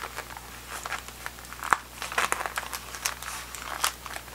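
Plastic packaging bag and cardboard header card crinkling and rustling in the hands while the card's staples are pried open, with scattered small clicks and one sharper click a little under two seconds in.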